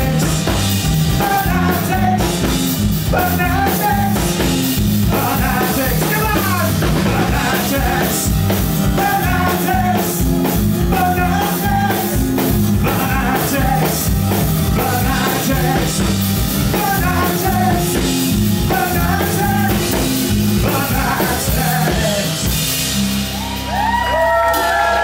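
Live rock band of acoustic guitar, bass guitar and drums playing loudly on a steady beat, with a repeating melodic lead phrase over it. About 23 seconds in the beat stops and a final chord rings on, with high sliding notes over it.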